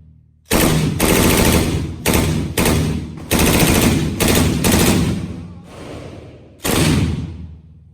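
Gunshots at a shooting range: about eight shots fired singly at uneven intervals, each a sharp crack followed by a reverberant tail that dies away over about half a second.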